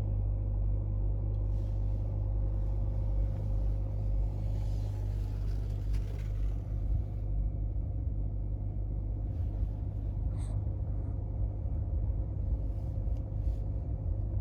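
A steady low rumble with a faint, even hum over it, starting and stopping abruptly.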